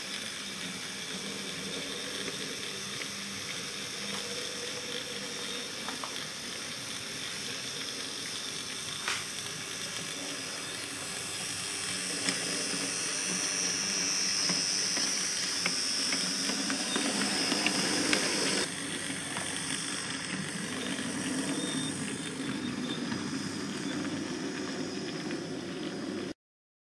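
Hornby OO gauge J94 model saddle-tank locomotive running along the track with a short goods train: a steady hissing running noise of its motor and wheels on the rails. The noise grows louder as the train passes close, drops abruptly about two-thirds of the way in, and cuts off just before the end.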